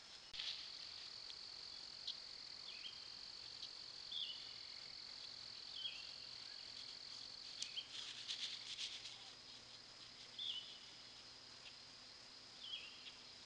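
Faint insect chorus: a steady high-pitched trill that fades out about two-thirds of the way through. Over it, a short chirp repeats every couple of seconds, with a burst of faint clicks near the middle.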